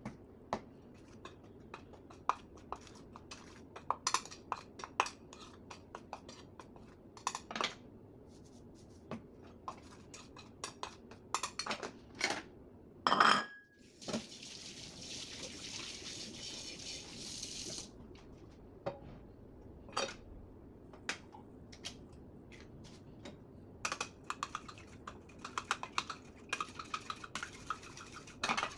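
Kitchen utensils and dishes clinking and knocking in irregular clatters, the loudest about halfway through. Right after it comes a steady hiss lasting about four seconds.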